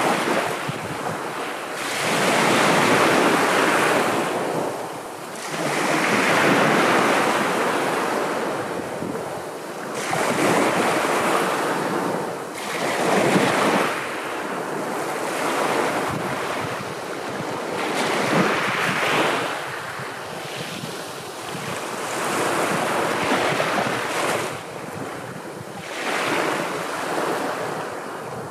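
Sea waves breaking and washing on the shore, swelling and falling away in repeated surges every three to four seconds.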